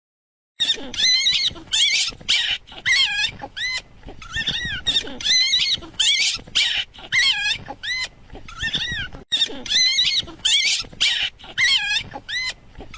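High-pitched animal cries, each rising and falling in pitch, repeated rapidly about two to three times a second and sometimes overlapping, starting about half a second in.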